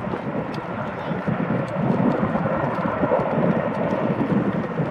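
Sikorsky CH-54A Skycrane heavy-lift helicopter in flight, its six-blade main rotor chopping in a steady rhythm over the running of its twin turbine engines.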